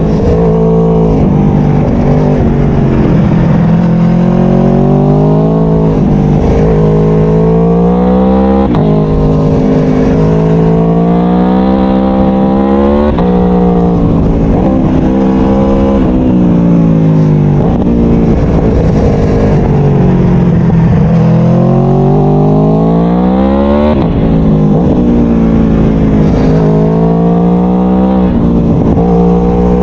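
Aprilia Tuono V4 1100's 65-degree V4 engine pulling hard through the gears. Its pitch climbs for a few seconds and then drops sharply at each upshift. Around the middle it falls away as the bike slows, then climbs again, over a low wind rush.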